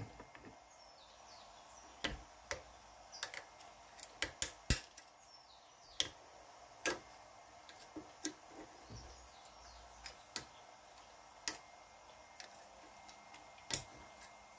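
Steel hand tools working a rusted retaining ring out of a tractor loader's hydraulic cylinder barrel: a dozen or so sharp metal clicks and taps at irregular intervals.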